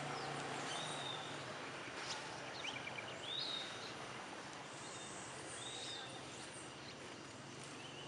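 Orange-cheeked parrots giving several short, high calls a second or more apart, over a steady hiss of forest background.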